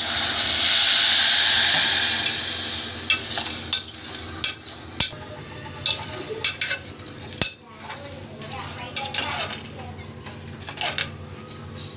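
Water pouring from a plastic bottle into a steel pan of cooked moong dal for about the first three seconds, then a steel spoon stirring in the pan with repeated scrapes and clinks against its side.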